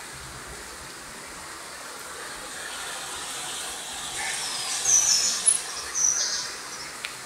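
Steady outdoor hiss from a wet garden, with two short high-pitched chirps about five and six seconds in and a fainter one just before them.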